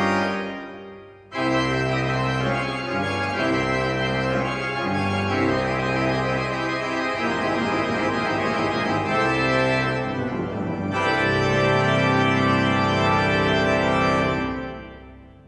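Organ playing sustained chords. The sound dies away just after the start, comes back in sharply about a second in, and fades out near the end.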